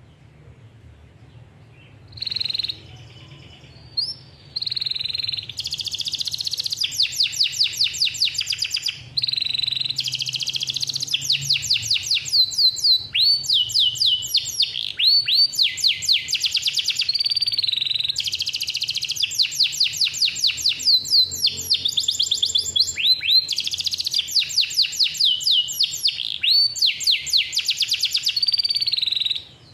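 Male domestic canary singing a long, persistent song: fast rolling trills of rapidly repeated high notes, broken by short pauses between phrases. The song begins about two seconds in.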